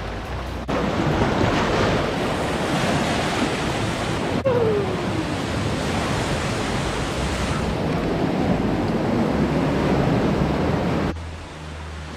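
Surf washing over a rocky coral shoreline: a steady rushing of breaking waves, dropping quieter about a second before the end.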